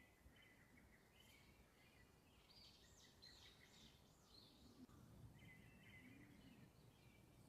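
Faint birdsong: a run of four or five quick chirps about halfway through, with softer twittering around it over low background noise.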